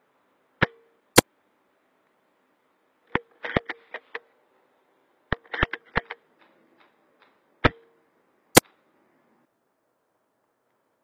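Tokyo Marui VSR-10 spring-powered bolt-action airsoft rifle being fired and cycled: sharp cracks of the shots, with runs of quicker metallic clicks between them from the bolt being worked. The sharpest crack comes near the start and another near the end.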